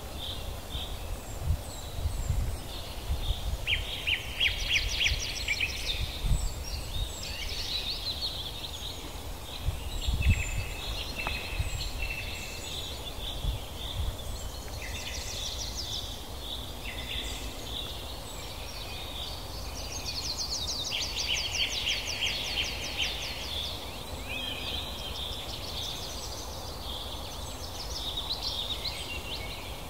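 Songbirds singing and calling together: repeated rapid trills and short chirps overlapping throughout, over a steady outdoor background, with a few low thumps.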